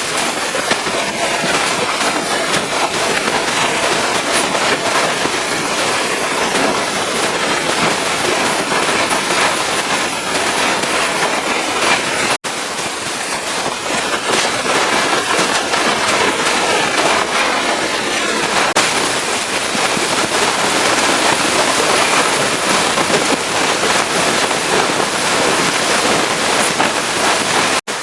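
Pressure washer jet spraying water onto a truck's surfaces: a loud, steady hiss with a crackling spatter. It breaks off sharply about 12 seconds in and resumes at once.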